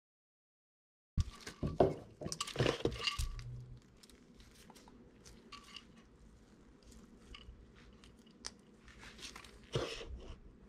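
Handling noise from a CYC X1 Pro Gen 2 mid-drive motor being picked up and turned over in nitrile-gloved hands, with knocks, rustles and small clicks. It starts abruptly after a second of dead silence, is busiest for the next few seconds, then thins to occasional clicks with a few more rustles near the end.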